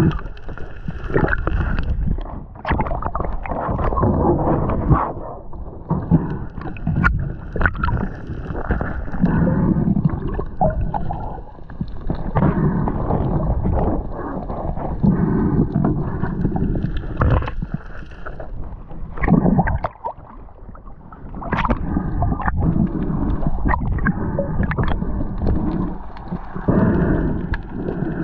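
Water sloshing and gurgling close to the microphone, with scattered knocks and clicks.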